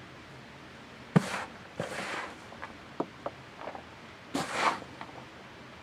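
Hands digging and sifting through compost in a potato tub: three short rustling scrapes of soil, with a few sharp knocks in between.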